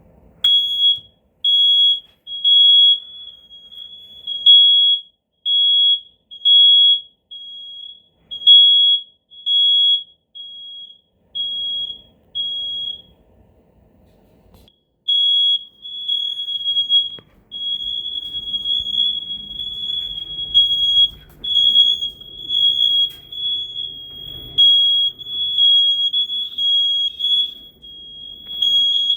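Smoke alarm sounding during a test: a shrill, high-pitched beep repeating about one and a half times a second. It stops for about two seconds around halfway, then starts again with the beeps running closer together.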